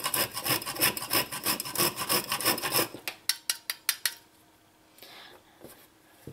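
A whole nutmeg rasped quickly back and forth on a stainless-steel microplane grater, about four to five strokes a second, slowing to a few single strokes and stopping about four seconds in.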